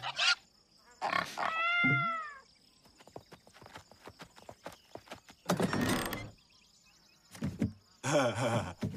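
Cartoon soundtrack: a cartoon cat's cries and yowls, the first a single arching wail about two seconds in, with a run of quick light clicks after it and louder cries near the end.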